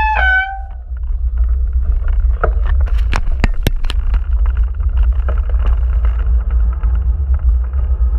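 Wind rumbling on the microphone over the tyre noise of a mountain bike rolling on cracked, broken pavement, with a few sharp rattling knocks about three seconds in as it jolts over rough spots. A brief tone steps down in pitch at the very start.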